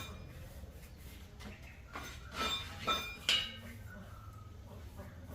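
A few sharp metallic clinks about two to three and a half seconds in, each with a brief ringing tone, between quieter handling sounds.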